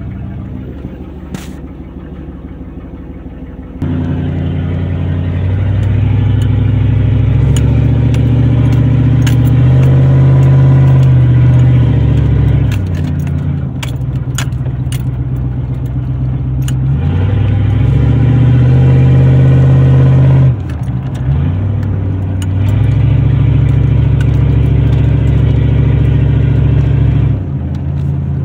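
1984 7.4-litre 454 big-block V8 in a Chevy pickup, running with the exhaust open after the manifolds, with no catalytic converter or mufflers, heard from inside the cab. It runs low and quiet at first. About four seconds in, the throttle opens and the engine pulls hard and loud, rising in pitch, easing and pulling again, and twice cuts back sharply when the throttle is let off. Light rattles and clicks come through in the middle.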